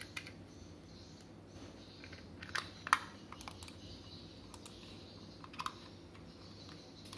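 A slim plastic wireless mouse handled and fitted together: scattered small plastic clicks and taps, the sharpest about three seconds in.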